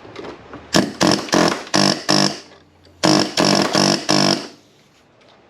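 Pneumatic air chisel firing in short trigger bursts, each a loud buzzing rattle with a steady pitch, as it is driven into a gap in sheet-metal bodywork. There are two runs of four or five quick bursts, about a second apart.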